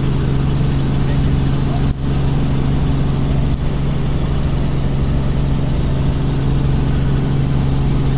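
Robinson R44 helicopter in cruise flight, heard from inside the cabin: the steady drone of its six-cylinder Lycoming piston engine and rotors, with a strong low hum. The level dips briefly about two seconds in.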